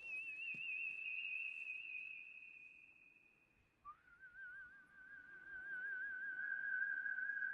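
A whistle-like tone with a fast, even wobble in pitch, held for about four seconds. About four seconds in it drops to a lower note that wobbles the same way and is held.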